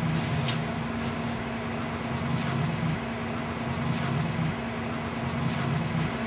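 Steady mechanical hum with hiss, holding one constant tone, and a low rumble that swells and fades every couple of seconds; two faint clicks in the first second.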